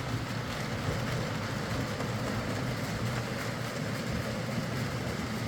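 Bachmann Class 47 OO gauge model locomotive running on track, with a steady motor hum and the rolling noise of wheels on rail. There is no screeching, a sign that the dry bearings either side of the worm gears are now lubricated.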